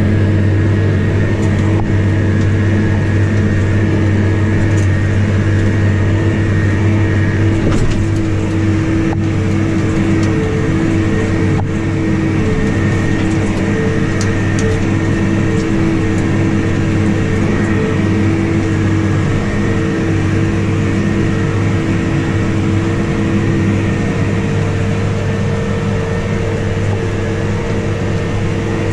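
Case Maxxum tractor's diesel engine running steadily under load while it pulls a 56-disc harrow, a constant low drone with a steady whine above it.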